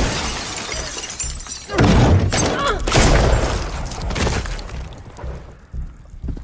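Glass shattering amid several loud crashes: one at the start, one just under two seconds in and one about three seconds in, dying away toward the end.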